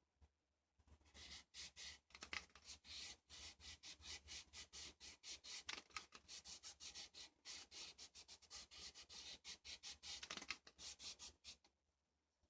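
Quiet, rapid scratchy strokes of wood stain being rubbed onto string wound around a wooden base. They start about a second in and stop shortly before the end.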